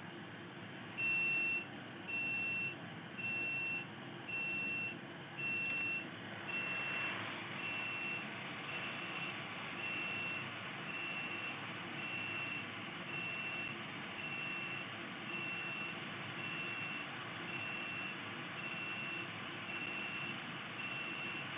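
An electronic beeper sounding a single high, steady beep about once a second, each beep about half a second long, the first five louder than the rest, over a steady background hum of bench equipment.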